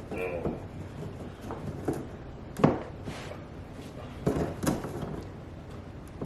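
A few sharp knocks and clunks of objects being handled, the loudest about two and a half seconds in, with two more a little after four seconds.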